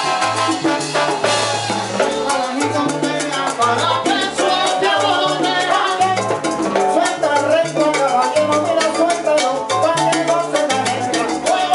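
Live salsa band playing: a walking bass line under dense percussion, with trombone at first and a man singing lead over the band through the second half.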